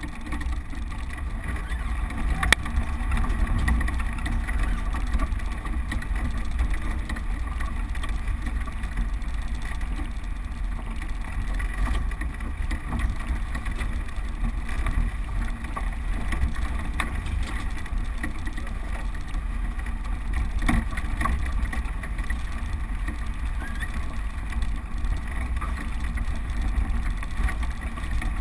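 Land Rover Defender engine running steadily with a low rumble as the vehicle crawls along a rutted dirt lane, heard from inside the cab. A couple of sharp knocks from the vehicle going over bumps, one about two and a half seconds in and another about twenty-one seconds in.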